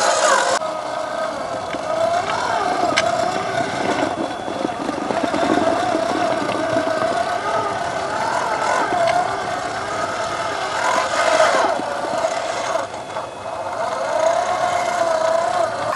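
Electric drive motor and gearbox of a Traxxas TRX-4 RC crawler whining, the pitch wavering up and down with the throttle as it crawls over rock and dirt.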